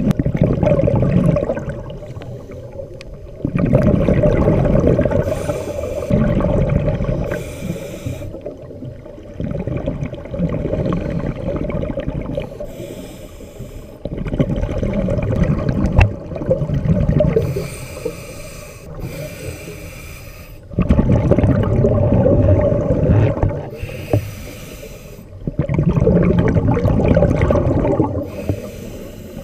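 Scuba diver breathing through a regulator underwater. Long bubbling exhalations alternate with short hissing inhalations, repeating every few seconds.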